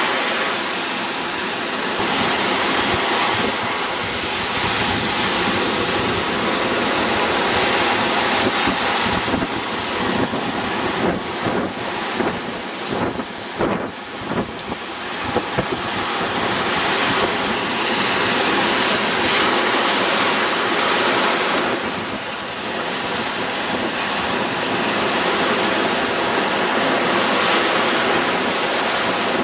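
Surf breaking and washing up the beach, with wind buffeting the microphone, most unevenly about halfway through.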